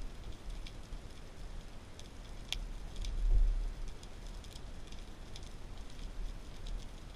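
Underwater ambience picked up by a camera in its housing: scattered sharp clicks and crackles over a faint hiss, with one louder click about two and a half seconds in and a low thump about a second later.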